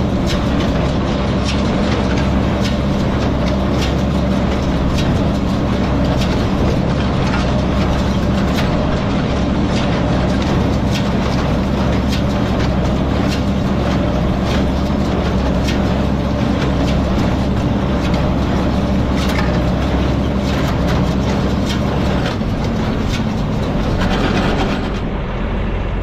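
Tractor engine running steadily while pulling a small square hay baler that is working, with regular sharp clacks about once a second from the baler's mechanism. The clatter and the higher noise fall away just before the end.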